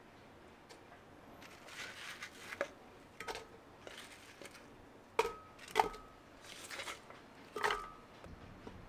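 Apple chunks and komatsuna leaves being dropped into a glass blender jar: soft rustles of the leaves, then three sharp knocks in the second half, each with a brief ring of the glass.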